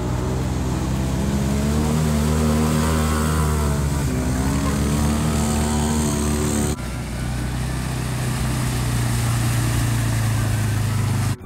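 Off-road vehicle engines, a side-by-side's and then a four-wheeler's, driving through a shallow creek with water splashing. The engine note rises and falls with the throttle, then changes abruptly about seven seconds in to a steadier, lower note.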